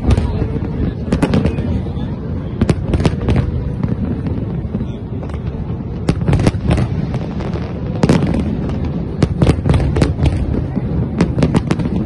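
Aerial fireworks display bursting in quick succession: clusters of sharp bangs over a continuous low rumble, with a brief thinner spell about halfway through.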